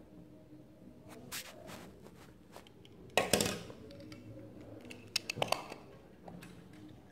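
Hands handling small die-cast toy cars on a paper surface: light knocks and scrapes as the cars are moved and set down. The loudest is a scrape of about half a second about three seconds in, with a quick run of clicks just after five seconds.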